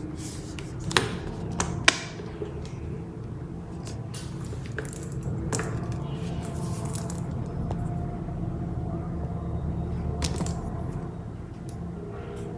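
Handbag being handled: two sharp clicks about a second apart near the start, likely its metal hardware, then lighter ticks and rustling, over a steady low background rumble.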